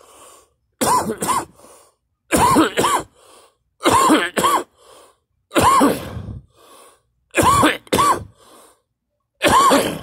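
A person coughing and gagging hard in six fits about a second and a half apart. Each fit is a pair of harsh, strained coughs and then a weaker one.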